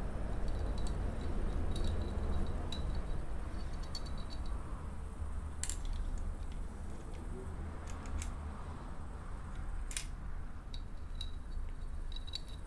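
Motorcycle clutch plates clinking against each other and the clutch hub as they are stacked by hand, with a few sharp metal clicks over a steady low rumble.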